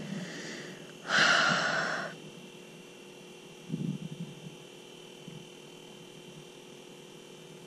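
A person's long, breathy exhale, like a sigh, about a second in, over a faint steady hum.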